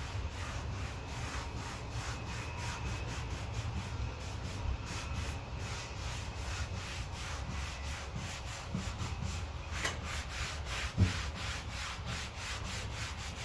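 Stain being rubbed onto a wooden dresser drawer front in quick, even back-and-forth strokes, a steady scrubbing rub against the wood.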